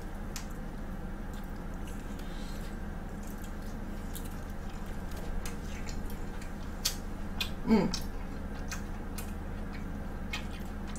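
Close-miked chewing of pizza, with scattered sharp mouth clicks and crust crunches, over a steady low hum. A brief wordless voice sound comes just before eight seconds in.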